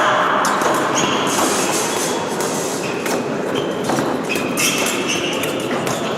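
Épée bout in a large hall: fencers' feet shuffling and scuffing on the piste, with scattered sharp clicks and a few short high squeaks over a steady hall noise.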